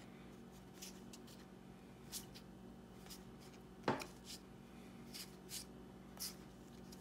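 Faint rustles and soft clicks of Topps baseball cards being handled and fanned out by hand, with a sharper click about four seconds in.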